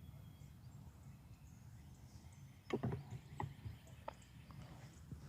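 Faint outdoor morning ambience, a steady low rumble with a few distant bird chirps, broken about halfway through by a short run of knocks and creaks lasting a second or so.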